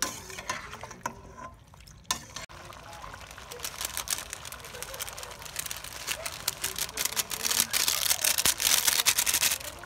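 Chicken feet sizzling in a hot pot, with a few clicks from the pot in the first two seconds. The sizzle thickens into dense crackling and grows steadily louder, loudest near the end.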